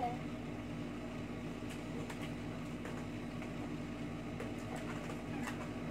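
Steady low mechanical hum of an indoor room, with a few faint light ticks.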